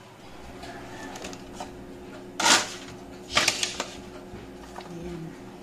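Aluminium loaf pans knocked and slid on a metal baking tray. One loud scrape comes about two and a half seconds in, and a quick run of clicks and clatter follows about a second later.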